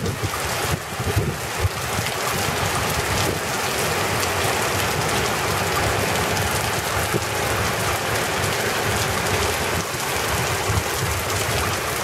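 Heavy downpour on a flooded street: a steady, loud rain hiss, with a fluctuating low rumble underneath.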